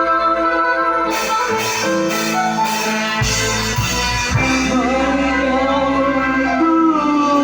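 Dangdut band music: a guitar-led melody over bass and drums, with a quick run of drum and cymbal hits from about a second in.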